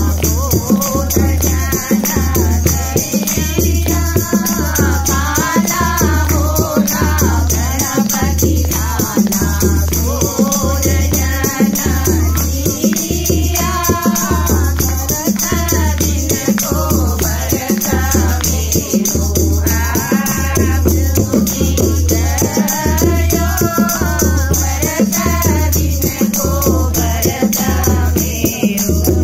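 Women singing a Pahadi folk song together, one voice leading, to a dholak barrel drum struck in a steady beat about once a second, with hand-clapping and a constant high rattle-like jingle.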